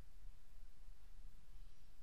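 Quiet room tone: a faint, steady low hum with no distinct sound.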